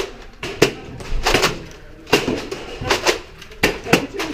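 Nerf Rival blasters firing and their foam balls smacking into walls and furniture: an irregular string of sharp cracks and thuds, several close together.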